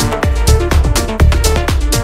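Electronic dance music: a steady kick drum about two beats a second, with crisp high percussion and synth tones.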